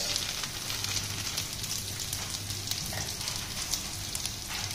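Onion-garlic masala paste frying in oil in a kadhai: a steady sizzle with faint scattered crackles.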